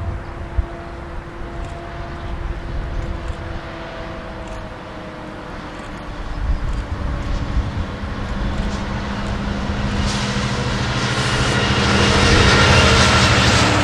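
Diesel commuter-train locomotive approaching, its engine and train noise growing steadily louder over the last several seconds.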